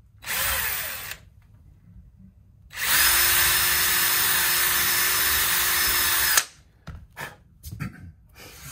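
Cordless DeWalt drill boring a pilot hole for a strap-button screw into a wooden guitar body: a brief spin near the start, then a steady run of about three and a half seconds at constant speed that stops abruptly. A few light knocks follow as the drill is set down.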